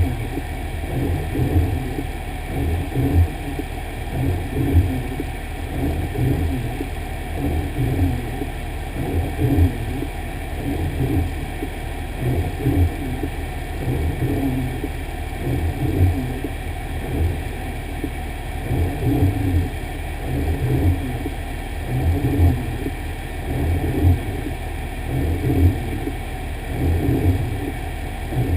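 Fire engine running, heard from inside the cab: a steady low rumble with a soft pulsing roughly once a second.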